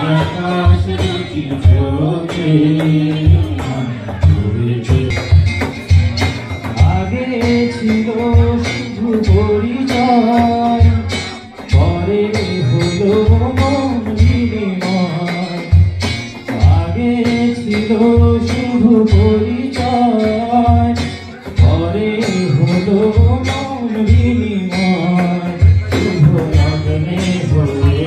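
A song: a sung melody over a steady, regular drum beat.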